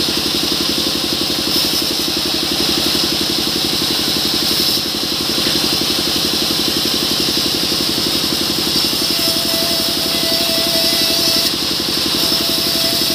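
Band sawmill running steadily with a fast, even engine-like pulsing and a constant high hiss as mahogany is fed through the blade.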